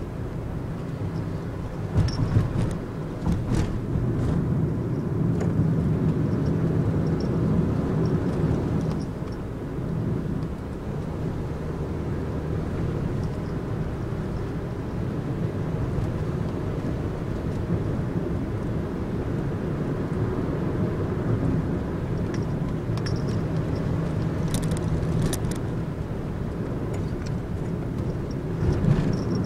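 Nissan NV200 van driving heard from inside the cabin: steady engine and road rumble, with a few light clicks about two to four seconds in and again near the end.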